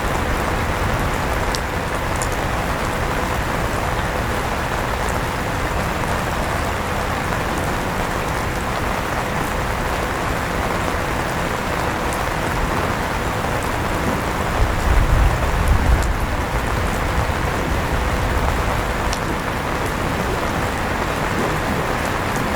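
Steady rainfall mixed with the whir of an electric fan running, with a faint steady hum. A brief low rumble swells about two-thirds of the way through.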